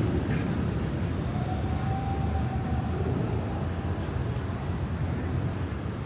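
Steady low rumble of city traffic in the street, with a faint background hum of urban noise.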